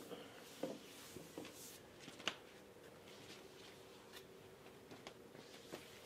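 Faint rubbing and handling sounds as a stained maple shelf is wiped down by hand, with a sharp tick a little over two seconds in and a faint steady hum underneath.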